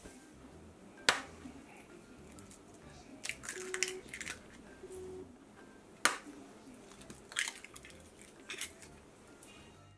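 Two eggs cracked open one after the other: a sharp tap about a second in and again about six seconds in, each followed by brittle crackling as the shell is pulled apart and the egg drops into the bowl.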